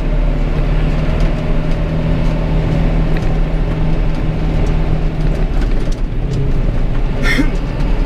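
John Deere 6420 tractor's four-cylinder diesel engine running steadily at road speed, heard from inside the cab as a constant low drone.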